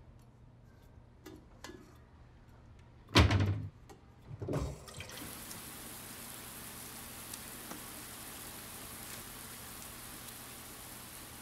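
A heavy thump about three seconds in and a smaller knock about a second later, then a steady hiss of falling water sets in and holds.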